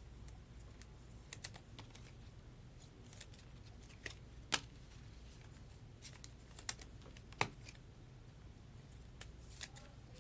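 Trading cards being handled and set down on a table: scattered light clicks and taps, two sharper ones about four and a half and seven and a half seconds in, over a faint steady hum.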